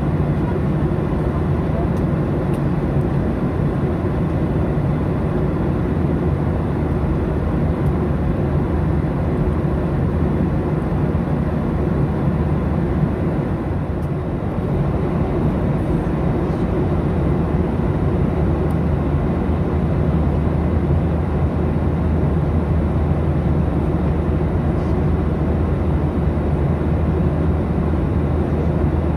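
Boeing 737 in flight, heard inside the cabin: a steady drone of turbofan engines and airflow, a low hum under an even rush that does not change.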